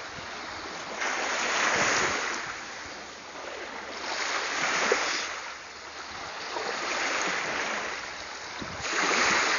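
Waves breaking and washing in, each one swelling suddenly and fading, about every two to three seconds.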